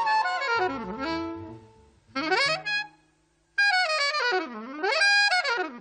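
Alto saxophone improvising on a slow jazz ballad in fast, swooping runs that plunge low and climb back up, with a short pause about three seconds in; a double bass sounds low under the opening phrases.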